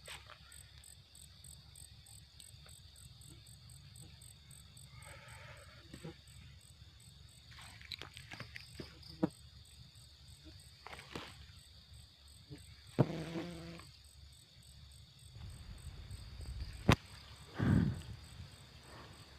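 A night chorus of crickets and other insects: a steady, high-pitched trill that never stops, with scattered faint clicks and rustles and a few brief low sounds among them.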